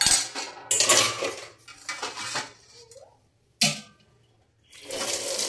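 Steel and ceramic plates clattering against each other in a stainless steel sink, with a fork scraping food scraps off a plate, then one sharp clink. Near the end a tap starts running steadily into the sink.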